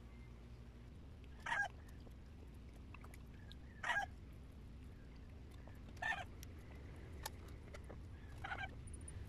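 Four short honking bird calls, about two seconds apart, over faint clicking from chewing.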